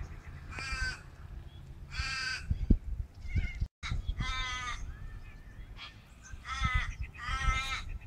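Five drawn-out harsh bird calls, each about half a second long and spaced irregularly, over a low rumble on a smartphone microphone. The sound drops out for an instant a little before halfway.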